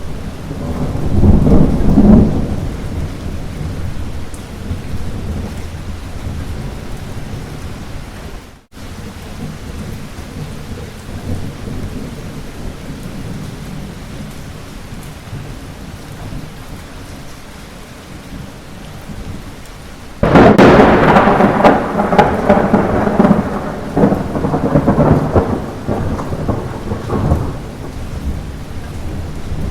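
Steady light rain with thunder: a low rumble swells about a second in, then about two-thirds of the way through a loud thunderclap breaks suddenly and rolls on for several seconds. The sound cuts out for an instant about a third of the way in.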